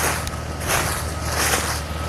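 Crunching footsteps, about one every 0.7 s, over a steady low engine hum.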